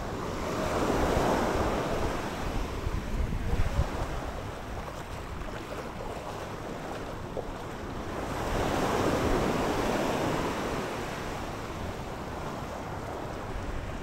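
Small sea waves breaking and washing up a sandy shore, the wash swelling twice, about a second in and again around nine seconds in. Wind buffets the microphone with low rumbles, strongest around three to four seconds in.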